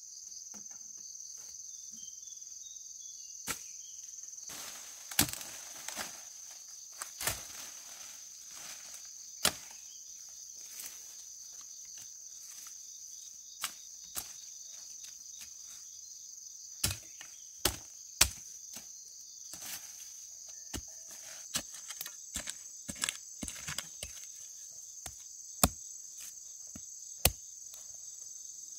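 Steady, high-pitched insect chorus, with irregular sharp knocks and a few short spells of rustling scattered through it; the knocks are the loudest sounds.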